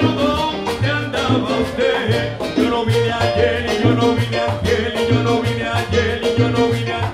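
Live salsa band playing without words: timbales and congas striking a steady rhythm, with a güiro scraping over a keyboard and a repeating low line.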